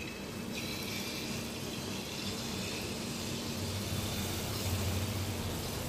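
Jalebi batter sizzling as it is piped into hot refined oil in a kadai, starting about half a second in and running on steadily; the oil is hot enough that the batter bubbles hard at once. A low steady hum lies underneath.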